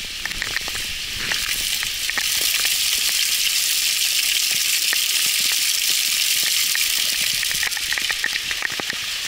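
Heavy rain falling: a steady dense hiss that grows louder about two seconds in, with scattered ticks of drops landing close by.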